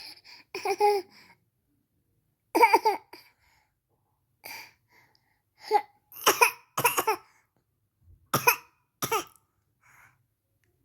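A baby's short, voiced coughs: about nine or ten quick coughs in small clusters, with pauses between them.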